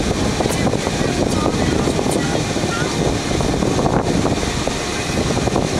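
Motorboat engine running steadily under a loud, even noise, with wind buffeting the microphone.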